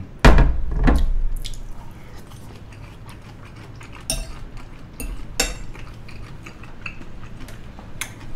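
A metal fork clinking and scraping against a ceramic pasta bowl, several sharp clinks spread out with the loudest near the start, and soft chewing in between.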